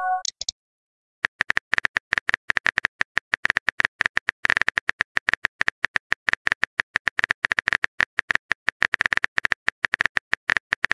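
Simulated phone keyboard clicks from a texting-story app as a message is typed, a rapid run of key taps many times a second. A short message chime fades out in the first half second, just before the typing begins.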